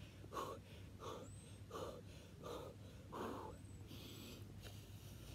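A man breathing hard in short, forceful puffs, a little under two a second, from the strain of fast skater jumps; the puffs stop about three and a half seconds in.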